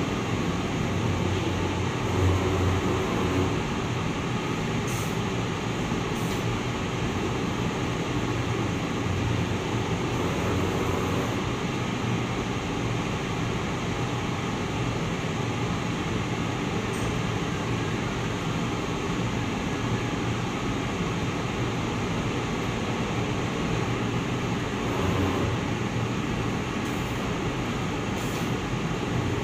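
Two-colour UV-drying screen printing machine running: a steady mechanical whirr with a low hum, and a few faint clicks.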